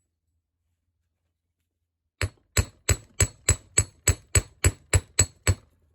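A small hammer striking the wire upright of a lever-lock pick on a metal block, twelve quick even blows about three a second with a bright metallic ring, flattening the round wire so it will grip the levers.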